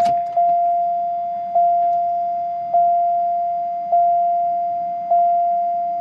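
Dashboard warning chime of a 1992 Pontiac Bonneville with the key in the ignition: a single steady electronic tone struck about once every 1.2 seconds, each ring fading before the next. There is a click just at the start.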